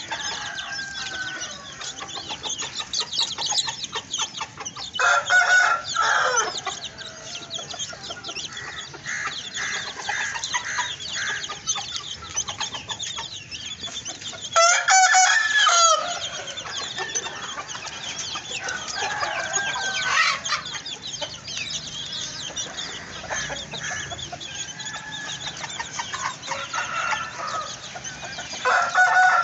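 A rooster crowing three times, each crow loud and about a second or so long, with chickens clucking and other bird calls going on in between.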